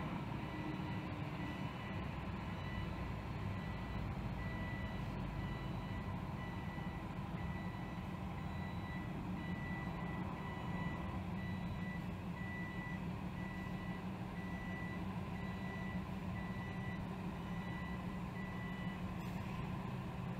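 Box truck's backup alarm beeping steadily, about one beep a second, over the steady running of its engine as it reverses; the beeping stops near the end. Heard muffled through a closed window.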